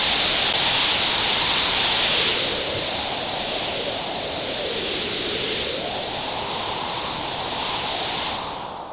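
Synthesized wind: two software-synth wind patches (Omnisphere and Massive), each made from a noise oscillator through a filter, layered together. There is a bright steady hiss up high and a lower band that slowly rises and falls like gusts. The sound fades out near the end.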